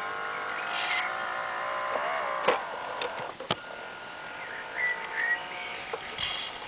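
Small electric drive motor of a radio-controlled model warship, whining at a steady pitch that wavers about two seconds in and then fades. Three sharp clicks come midway, the first the loudest.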